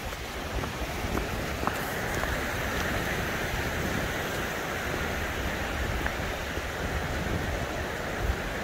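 Steady rushing of a mountain stream, growing louder about two seconds in, with faint footsteps on a dirt trail.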